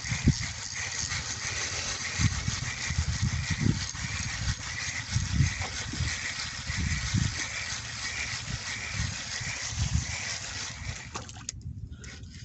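Wind buffeting the microphone in irregular low gusts over a steady hiss of wind and rain, with a faint chirping that repeats about every half second; the noise cuts off abruptly near the end.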